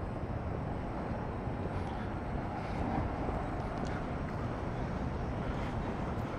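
Steady low rumble of city traffic, an even background noise with no distinct events.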